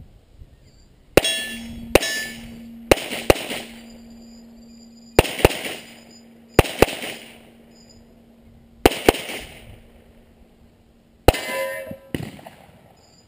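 A handgun fires about ten shots at an uneven pace, twice in quick pairs, during a timed run. Each sharp crack is followed by a metallic ringing, consistent with steel targets being hit.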